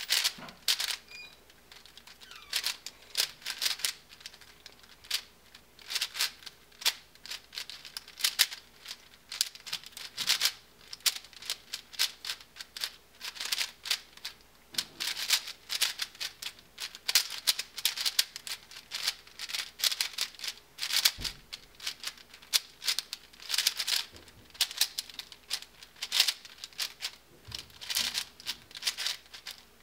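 Plastic clacking of a mini MoYu Aosu 4x4 speedcube being turned fast during a timed solve. The clacks come in quick bursts of rapid turns separated by brief pauses.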